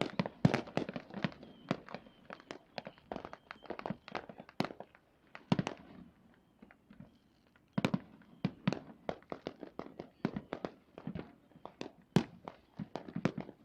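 Fireworks going off in rapid succession: a dense run of sharp bangs and crackling pops, with a few louder booms scattered through.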